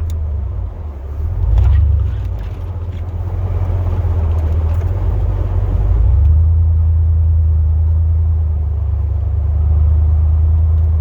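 Chevrolet Silverado plow truck running, heard from inside the cab as a steady low drone that rises and falls over the first couple of seconds, then holds even from about six seconds in.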